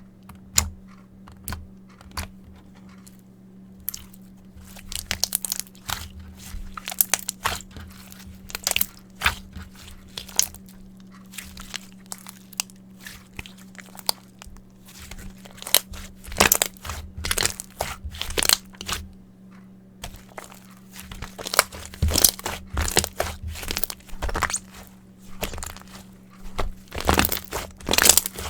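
Hands pressing and stretching glossy mirror-powder slime, giving a dense run of crackling pops and clicks from trapped air, with a couple of brief pauses.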